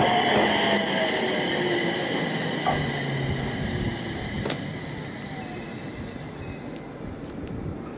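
JR East 701 series electric train pulling out and running away, its motor whine and running noise fading steadily as it goes, with a few sharp clicks from the wheels along the way.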